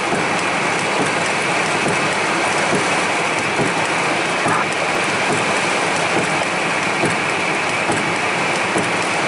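Heavy thunderstorm rain falling on a car's roof and windshield: a steady, dense patter.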